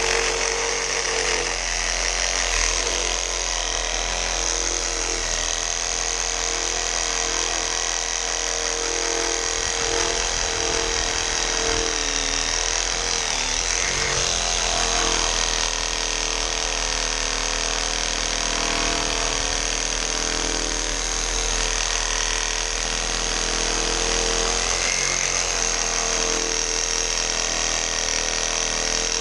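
Cordless brushless reciprocating saw running without a break as its blade saws through a dead apple tree branch. It makes a loud, steady, high-pitched motor whine with the rasp of the blade in the wood.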